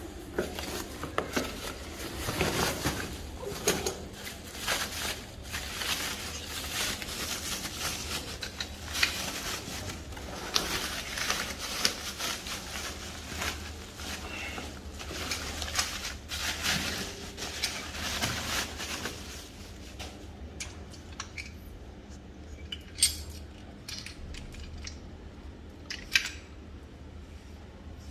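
Metal parts of a bicycle engine kit clinking and rattling as they are handled, in a dense run of irregular knocks and scrapes that thins out to a few sharp clicks in the last third.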